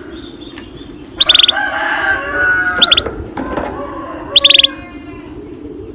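Domestic canary singing three short bursts of rapid, high trilled notes, about a second and a half apart. A lower, drawn-out call sounds under the first two bursts.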